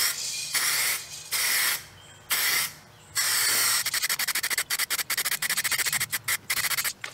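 An Eastwood 2K clear-coat aerosol can with a trigger grip is sprayed onto a painted motorcycle fender. There are about five separate hissing passes of roughly half a second each, then a fast stuttering run of very short hisses in the second half.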